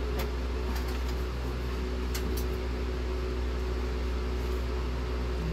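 Steady low hum, like a fan or running appliance, with a few faint light clicks about a quarter second in and around two seconds in.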